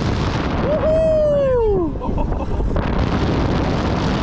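Wind buffeting the microphone of a rider on a moving spinning coaster, a steady low rush. About a second in, a loud wail falls in pitch for about a second.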